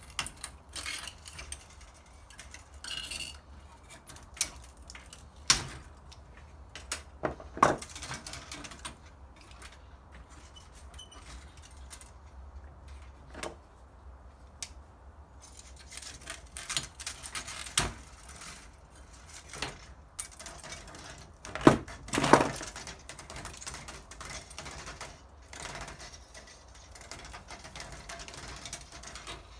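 Irregular clicks, knocks and small metallic clinks from hand tools and loose metal parts as a ceramic hob is taken apart for scrap, with a few louder knocks about eight seconds in and again near twenty-two seconds.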